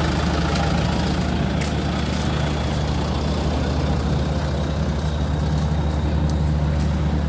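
Large diesel engine running steadily, a loud, even low drone with no change in speed.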